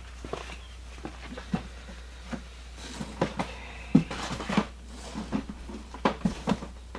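Items and packaging being handled on a table: scattered light taps and knocks with some rustling, the sharpest knock about four seconds in, over a steady low hum.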